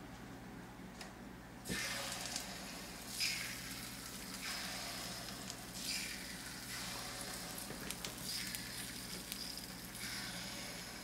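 Yorkshire pudding batter poured into a muffin tin of hot tallow, sizzling as it hits the fat. The sizzle starts suddenly about two seconds in and swells afresh as each cup is filled.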